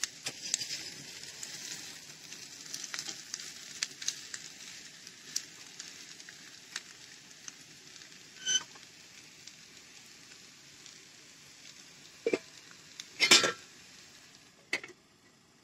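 Fried potatoes with onion sizzling and crackling in a frying pan as they are stirred and turned with a fork and then a spatula; the sizzle fades after the first several seconds. A ringing metal clink comes about eight seconds in, then a few louder clanks of utensil and pan near the end, the loudest about thirteen seconds in.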